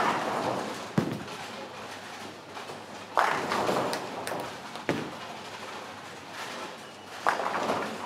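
Bowling balls striking pins on the lanes: three crashes of pin action, each dying away over about a second (right at the start, about three seconds in, and near the end). Two sharp thuds fall between them.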